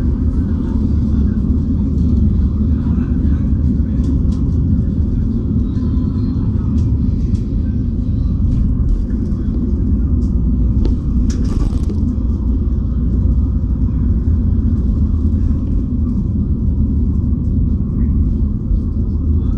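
A bus driving, its engine and road rumble heard from inside the cabin as a steady low drone, with light rattles and a short hiss about eleven seconds in.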